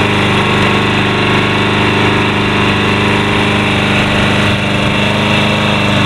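Troy-Bilt push mower's Briggs & Stratton 675 series 190cc single-cylinder engine running steadily at a constant speed.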